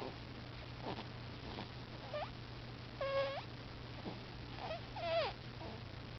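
A sleeping baby's squeaky snoring: short high-pitched squeaks and whimpers with its breathing, at irregular intervals about a second apart. Some glide down, and one held squeak comes about three seconds in.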